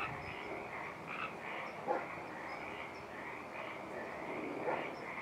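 A chorus of frogs calling steadily, many short repeated calls overlapping. A few louder, nearer calls stand out: one at the start, one about two seconds in, and one near the end.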